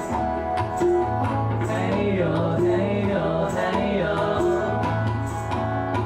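Live acoustic music: acoustic guitar and tabla over a sustained low sung drone, with sharp tabla strokes throughout.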